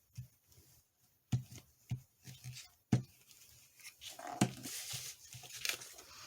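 Paper and crafting materials being handled at a table while a piece is glued down: a few light taps and knocks, then about two seconds of paper rustling and scraping from about four seconds in.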